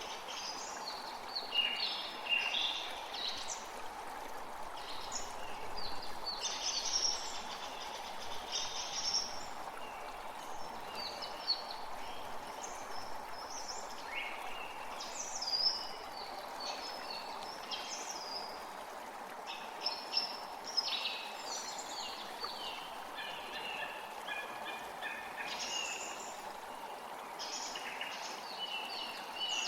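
Many small birds chirping and trilling in quick, overlapping calls over a steady rush of flowing water.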